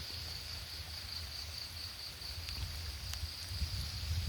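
Insects trilling steadily in a high pitch, a continuous outdoor chorus, over a low rumbling noise on the microphone.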